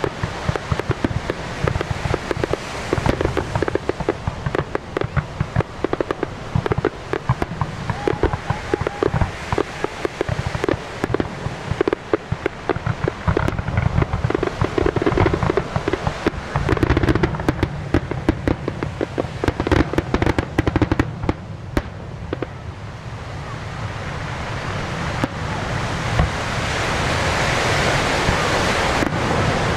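Aerial fireworks display: a rapid string of bangs, booms and crackles from bursting shells. The bangs thin out after about 22 seconds, and a steady rushing noise builds up over the last few seconds.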